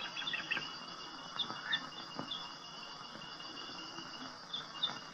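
Faint steady high-pitched insect chirring, like crickets, with a few short high chirps scattered through it.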